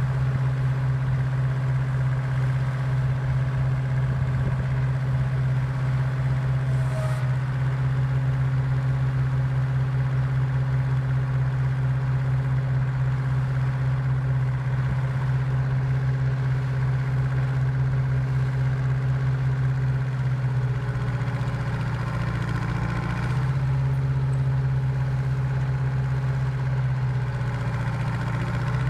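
Austin-Western motor grader's engine idling steadily, rising briefly in speed about three quarters of the way through, then dropping back to idle.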